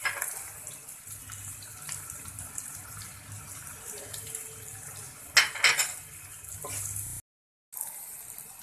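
Onions and boiled rohu fish roe frying in oil in a non-stick wok: a steady sizzling hiss, with a wooden spatula scraping against the pan a few times, loudest about five and a half seconds in. The sound cuts out for a moment near the end.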